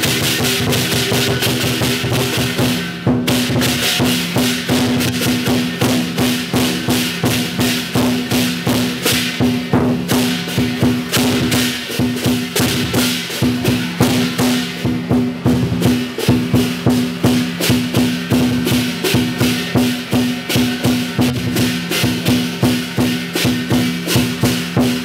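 Chinese lion dance percussion: a drum with clashing cymbals beating a fast, steady rhythm, with a low ringing tone sustained underneath.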